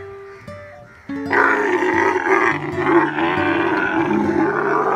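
Camel calling: about a second in, it lets out one long, loud, rough groaning call that lasts about four seconds, over background music.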